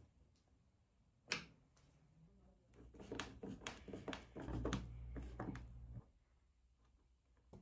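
Small clicks, taps and rattles of a screwdriver, wires and parts being handled on a workbench. There is one sharp click about a second in, then a dense run of clicks with a low rumble under it through the middle.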